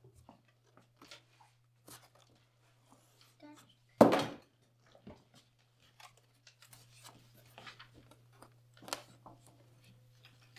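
Paper and small objects being handled: scattered rustles and light knocks, with one sudden loud crash about four seconds in, over a faint steady low hum.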